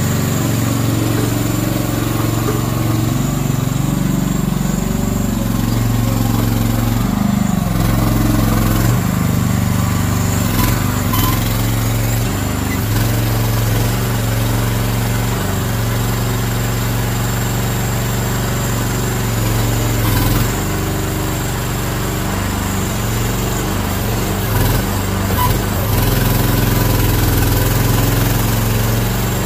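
Petrol engine of a Slanetrac HT1000 tracked mini dumper running steadily, its pitch shifting several times as it drives the tracks and powers the hydraulic high-tip raising the loaded skip.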